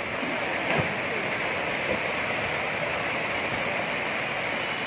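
A steady rush of water, an even hiss that neither rises nor falls.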